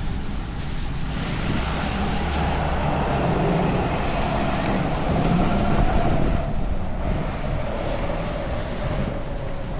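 Rain noise with a motor vehicle running close by on a wet street, its engine note slowly falling in pitch.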